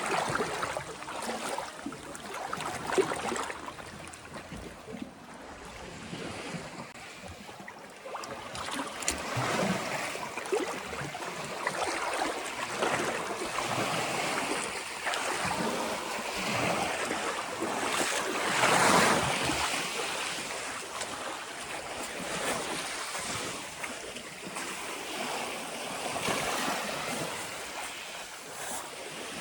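Calm sea waves washing onto the shore, the wash swelling and ebbing in slow surges. The loudest surge comes about two-thirds of the way through.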